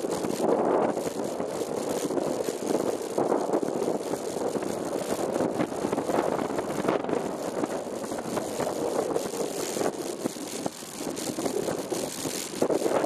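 Wind rushing and buffeting over the microphone of a camera on a moving bicycle, making a steady rough rush with constant flutter.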